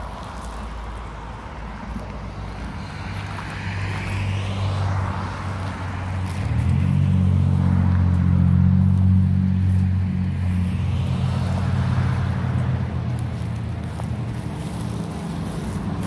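Road traffic going by: tyre hiss swells and fades twice, and a vehicle's low, steady engine hum swells in about six seconds in, is loudest through the middle, then fades.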